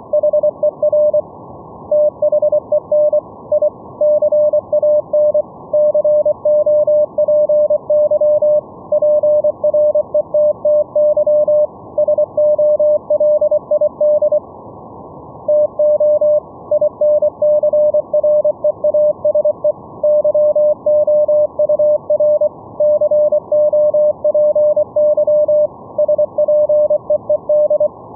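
Morse code (CW) signal received over the VLF band and demodulated by an SDR receiver: a single steady mid-pitched tone keyed on and off in dots and dashes at a steady sending speed, over constant receiver hiss. The keying pauses briefly about a second in and again around halfway.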